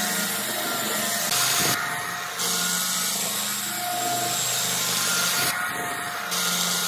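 A power tool running against wood, a steady rushing hiss over a motor hum, whose hiss drops away abruptly twice.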